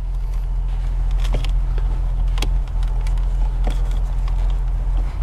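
A few light clicks of a small screwdriver prying at the plastic locking tab of the airbag-indicator wiring connector on a climate control panel, over a steady low hum.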